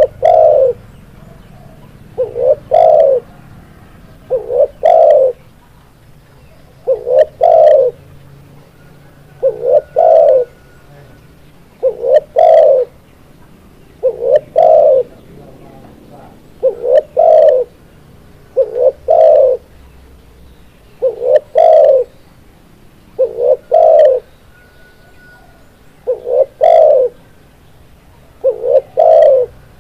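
Spotted dove (tekukur) cooing: a short low phrase of two or three coos, repeated evenly about every two and a half seconds.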